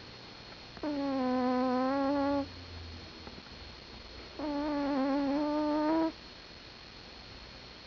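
Sleeping cat snoring: two long snores with a clear, steady pitch, each about a second and a half long and some three and a half seconds apart, with quiet breathing between.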